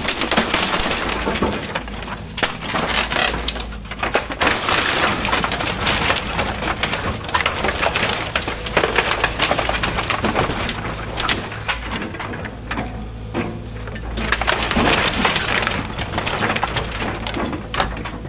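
Excavator bucket crushing and breaking up a pile of wooden boards and framing: many sharp cracks, snaps and splintering wood, over the steady low hum of the excavator's engine, easing off briefly a few times.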